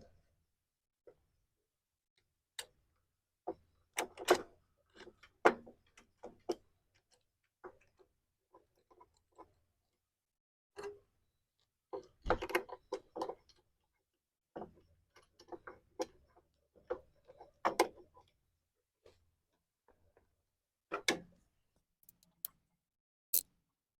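Irregular metallic clicks and knocks of hand tools and bolts against the engine as a new starter is set into place and bolted onto a riding mower's engine, with a few short runs of quicker clicks.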